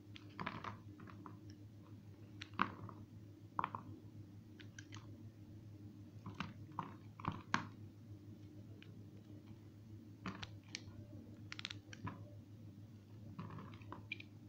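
A small metal blade shaving strips off a bar of soap: irregular crisp scrapes and crunches, some single and some in quick clusters, over a low steady hum.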